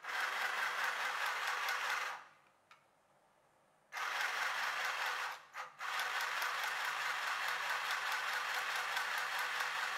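CGB SM-002 mini chain-stitch sewing machine running, its needle stitching fabric in a fast, even run of strokes. It stops about two seconds in, a small click follows, and it starts again about four seconds in, dropping out briefly once more, as its pedal is pressed and released.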